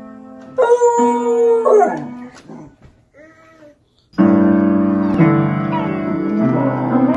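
A dog howls one long held note about a second in, then whimpers faintly a few times. Background piano music comes in from about four seconds in.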